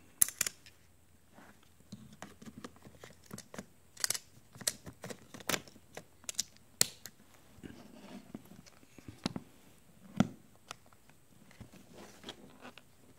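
A Nikon D90's battery being pushed into its compartment and the plastic battery door worked shut, with a series of sharp irregular clicks and knocks from handling the camera body.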